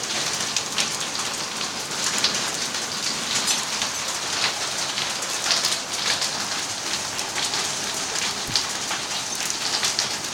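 Rain starting to fall with hail: a steady hiss of rain with many irregular, sharp ticks of hailstones striking.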